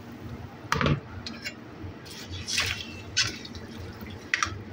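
Water splashing and dripping into an aluminium cooking pot of chicken and whole spices, with a dull knock about a second in and a few sharp clinks after it.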